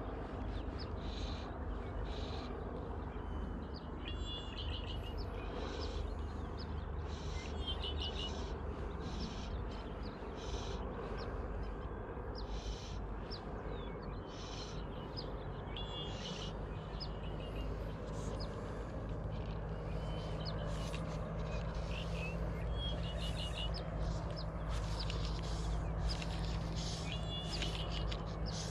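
Birds calling: short chirping calls that recur every few seconds, over a steady low rumble.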